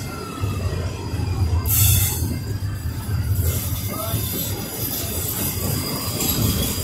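Double-stack intermodal freight train's well cars rolling past: a steady low rumble of wheels on rail, with a brief loud hiss about two seconds in and a thin, steady high wheel squeal later on.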